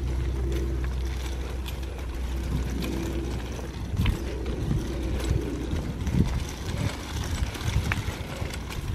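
A stroller's wheels rolling over a dirt path, with footsteps: a steady low rumble and scattered soft knocks and crunches.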